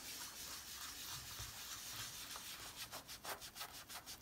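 Faint rubbing of a dense blending brush working pigment ink into coloring-book paper. The rub grows into a quick, regular back-and-forth of several strokes a second in the second half.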